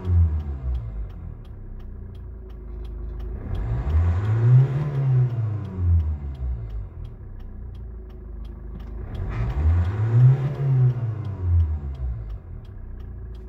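Hyundai Tucson ix engine free-revving in Park. A rev dies back to idle at the start, then the engine is run up and let fall back to idle twice more, about four and ten seconds in, its pitch rising and falling each time.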